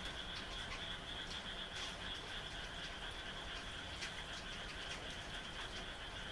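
Night chorus of frogs calling steadily, with a continuous high trill, as light rain falls and scattered drops tick.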